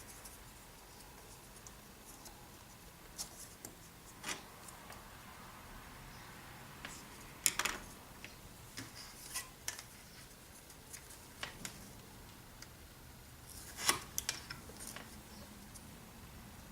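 Small strips of balsa wood being handled on a workbench: scattered light clicks and taps with a little rubbing, irregular, the sharpest about halfway through and again near the end.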